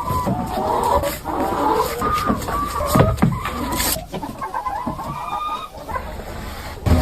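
A flock of chickens clucking and calling, many short overlapping calls from several birds at once.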